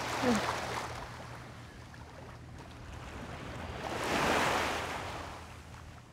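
Small waves lapping and washing onto a sandy beach, swelling to a louder wash about four seconds in.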